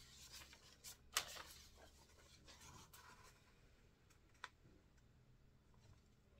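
Faint rustling and scraping of a cardboard template being laid on a canvas and lifted off again, with a sharp tap about a second in and a smaller click later on.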